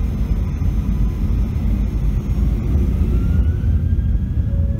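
Airliner jet engines heard from inside the cabin: a steady, loud rumble with a thin whine that slowly rises in pitch, as the engines spool up.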